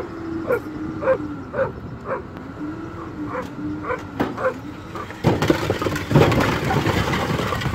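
A dog barks in short calls about twice a second over a wavering engine hum. About five seconds in, a load of hollow concrete blocks slides off the truck bed with a loud clattering rush.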